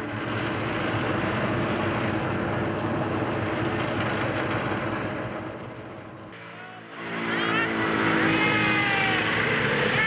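Motor vehicle engines running with a steady rushing noise. About six seconds in there is a cut to another engine sound with many short gliding high sounds over it.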